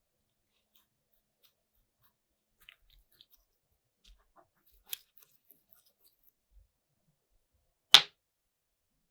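A few faint clicks and taps, a sharper click about five seconds in, then one loud short click near the end.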